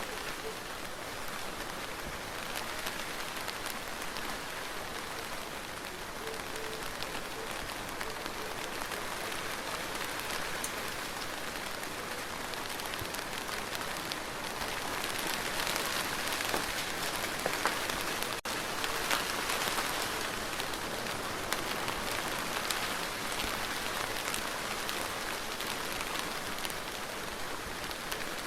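Steady rain falling and pattering on a surface, growing a little heavier for a few seconds past the middle.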